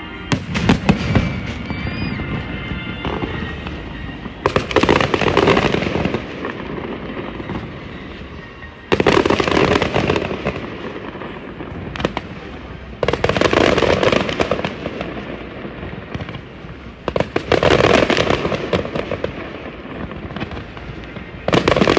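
Fireworks display: volleys of rapid bangs and crackle, loud bursts lasting about two seconds and coming roughly every four seconds, with a steadier crackling between them.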